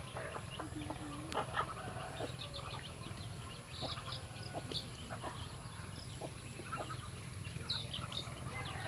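A flock of ducks and chickens feeding on scattered grain: many quick pecking clicks, with scattered soft calls and short high peeps from chicks.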